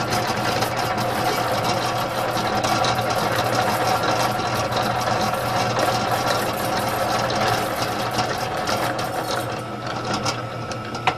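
Univex 20-quart belt-driven stand mixer running with its wire whip, speed turned up: a steady mechanical whir that eases slightly near the end, with a sharp click just before it ends.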